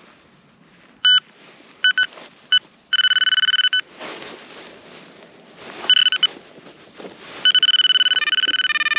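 Garrett Vortex VX9 metal detector sounding its target tone: short electronic beeps, then longer steady tones, and a long tone from about seven and a half seconds that shifts pitch near the end. It is a good signal over a buried coin. Soft rustling noise comes between the beeps.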